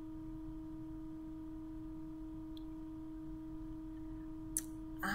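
A steady background tone, one low pitch with a few fainter higher tones over it, holding unchanged throughout. A short click and a breath near the end.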